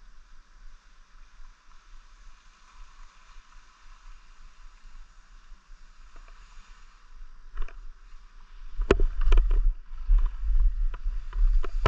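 Skis sliding over packed snow: a soft, steady hiss at first, then from about nine seconds in a run of louder scrapes with wind rumbling on the microphone.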